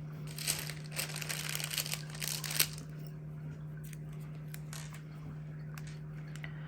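Paper sticker sheets crinkling and rustling as they are handled for about two seconds, ending in a sharp snap; then only a few faint light taps.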